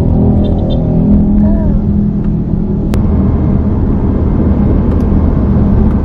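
Car engine and road noise inside the cabin while driving, a steady low drone, with a single sharp click about three seconds in.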